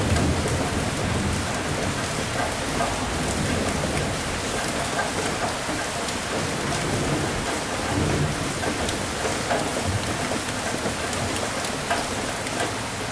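Steady rain pattering on surfaces, with low rolls of distant thunder swelling near the start and again about eight seconds in.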